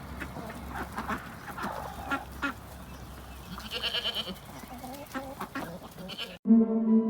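Goats bleating, with two short high-pitched calls about four seconds apart and scattered knocks around them. Near the end the sound cuts abruptly to ambient music with a steady low hum.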